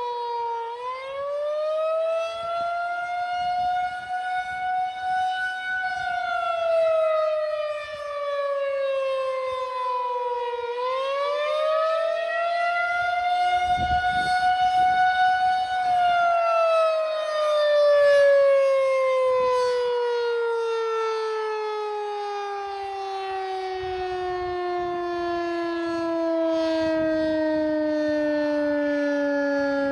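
Federal Signal 2001-130 electromechanical tornado siren sounding up close. Its pitch dips and climbs twice, holding at the top for a couple of seconds each time, then falls in one long slow slide as the siren winds down.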